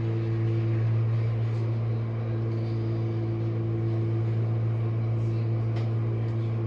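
Jenn-Air dishwasher running mid-cycle: a steady low motor hum.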